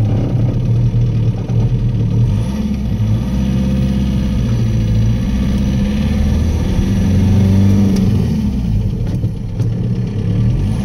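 A VW's swapped-in TDI diesel engine pulling away on its first drive, heard from inside the cab. The revs rise and fall twice.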